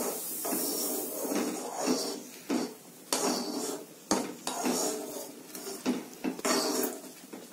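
Metal spoon scraping and clinking against a metal kadai as semolina (rava) is stirred into boiling water, in irregular strokes with a few sharper knocks.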